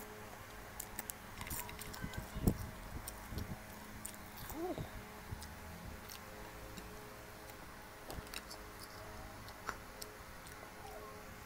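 Close-up eating sounds: chewing and wet mouth clicks, with scattered light clicks and taps as seafood is handled by hand and dipped in a bowl of sauce.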